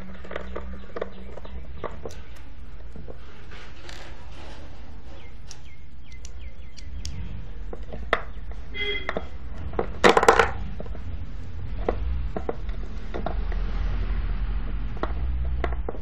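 Screwdriver working out the cover screws of a Western Digital Caviar WD800 IDE hard drive: scattered small metallic clicks and taps, with a louder clatter about ten seconds in. A low steady hum runs underneath.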